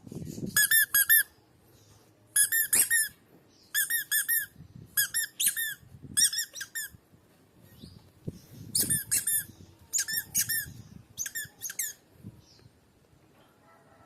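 Toy squeaker squeezed again and again, giving about eight quick bursts of three or four short squeaks, each squeak rising and falling in pitch, with soft low thuds between them.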